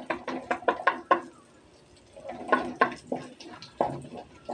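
Plastic spatula knocking and scraping against a metal wok while stirring garlic frying in oil: a quick run of knocks, a short pause just after the first second, then another run of knocks.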